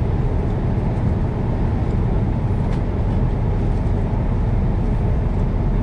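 Steady airliner cabin noise in flight: the even rumble of the engines and the airflow around the fuselage. A single faint click comes a little before halfway.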